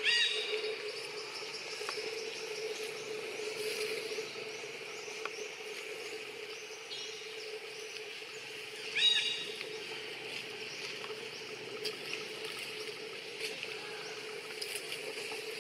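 Young macaque giving two short, high-pitched squeals, one at the very start and another about nine seconds in. Between them forest insects drone steadily, with faint chirping.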